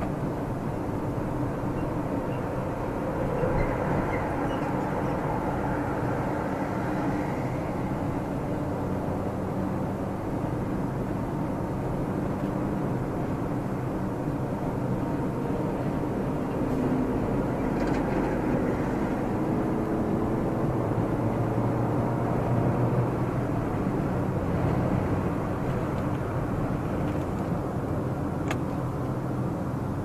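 Cabin sound of a 2019 Suzuki Dzire AGS under way at expressway speed: steady engine and tyre noise, with the engine note rising as the car picks up speed a couple of times.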